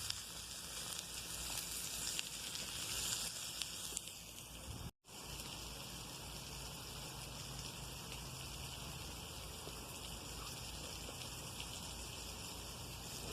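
Food sizzling in a frying pan, a steady hiss. The sound drops out for an instant about five seconds in, and the steady hiss carries on after.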